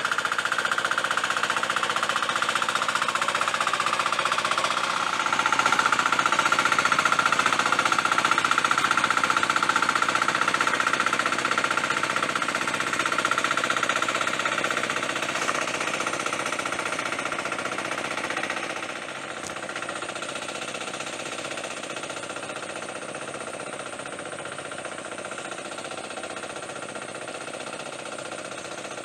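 Hand tractor's engine running steadily as it plows wet rice-paddy soil on cage wheels. It grows fainter about two-thirds of the way through as the tractor moves away.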